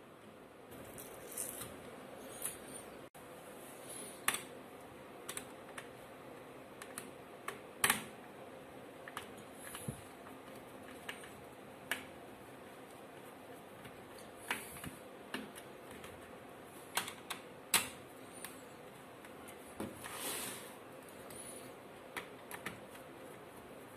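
Irregular small clicks and taps of hand tools on a laptop's plastic case, from prying off its glued rubber feet and unscrewing the hidden screws beneath them.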